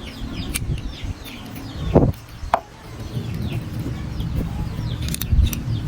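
Birds chirping in short, repeated falling calls over a low steady rumble, with one louder, lower falling call about two seconds in.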